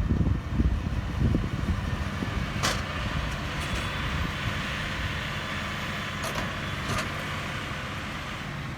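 Claas Arion 650 tractor's six-cylinder diesel running steadily while baling with a Lely Welger round baler. A steady hiss joins in about three seconds in, with a few sharp clicks.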